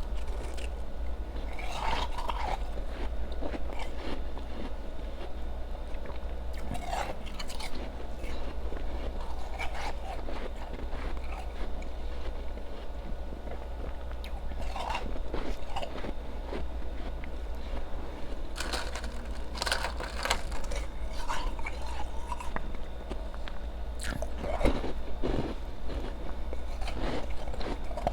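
Ice being bitten and chewed close to the microphone: crisp crunches come in clusters, with quieter chewing between them.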